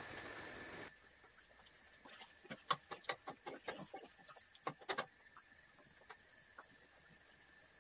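A wooden spoon stirring raw chicken livers in a stone-coated non-stick wok, knocking against the pan in a quick run of sharp clicks for about three seconds, then one more tap. A steady hiss cuts off about a second in.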